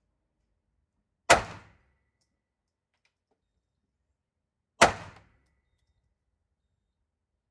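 Two shots from a P-64 'Czak' pistol in 9×18 mm Makarov, about three and a half seconds apart. Each is a sharp crack with a short echoing tail under the covered firing line.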